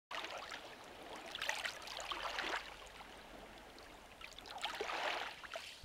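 Shallow water lapping and trickling among rocks at the edge, faint, swelling and easing twice.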